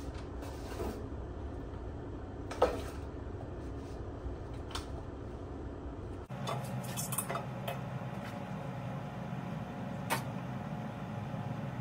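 Metal spoon stirring and scraping macaroni and cheese in a disposable aluminium foil pan, with a few sharp clinks of spoon against pan, the loudest about two and a half seconds in, over a steady low hum.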